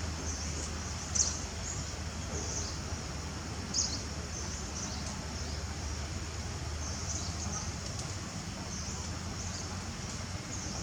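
Short high-pitched animal chirps or squeaks, one every second or two, over a steady low outdoor hum.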